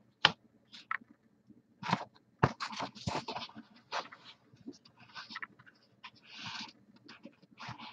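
A sheet of paper being handled and shifted, rustling and crinkling in a string of short scrapes, with one longer rustle near the end.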